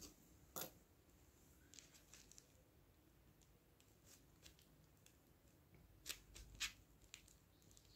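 Faint scratching and paper crinkling as a pencil traces an embroidery pattern through tracing paper laid over carbon paper. There are a few sharper little clicks about half a second in and twice around six to seven seconds.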